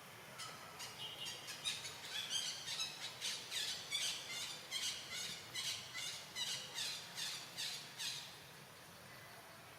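A rapid series of short, high-pitched squawking calls, roughly three a second, that stops about eight seconds in.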